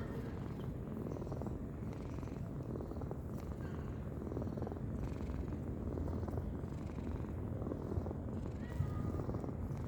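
A napping cat snoring: a steady low rumble.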